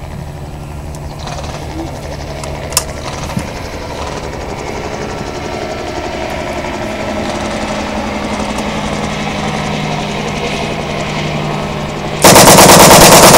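Steady background noise with one small click, then near the end a German MP40 submachine gun opens up on full auto: a loud burst of rapid, evenly spaced blank shots.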